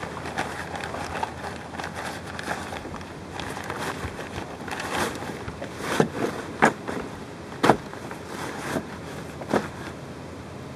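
Sailcloth of a small boat's jib rustling and crinkling as it is stuffed by hand into a sail bag, with several sharp knocks and clicks in the second half.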